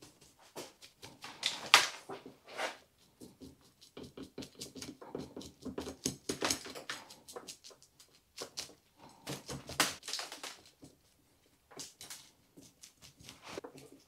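Moss being scraped and picked off the trunk and root flare of a European hornbeam bonsai: runs of quick small scratches and clicks, with a few louder scrapes and short pauses.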